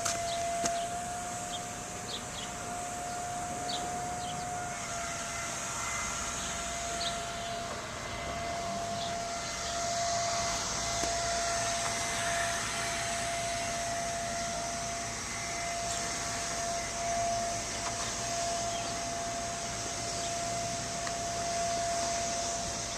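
A machine running steadily, with a single held whine over a high hiss.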